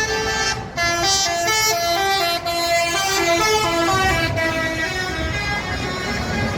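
A bus's Basuri telolet horn, a multi-trumpet musical air horn, playing a quick tune of stepped notes over the rush of road traffic. The tune stops about five seconds in, leaving road noise.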